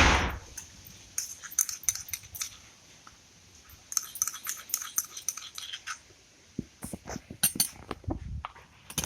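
A spoon scraping and clicking against a mortar and a small metal bowl as the pounded paste of ginger, cloves, tulsi and black pepper is scooped out, in short clusters of clicks. A loud knock of a utensil comes right at the start.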